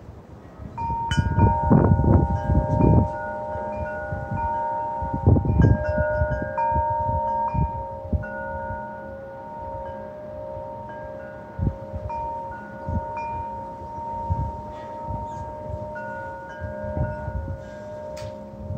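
Wind chimes ringing in gusting wind, several pitches struck together about a second in and then ringing on and overlapping as they are knocked again and again. Low gusts of wind rumble on the microphone early on and again around five seconds in.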